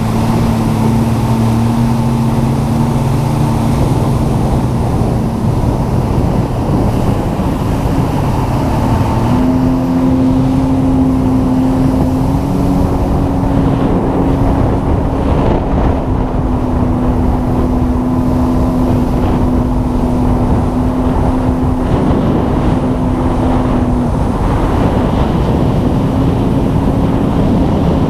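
Sea-Doo personal watercraft engine running steadily at speed, its pitch stepping up a little about nine seconds in and shifting again near the end.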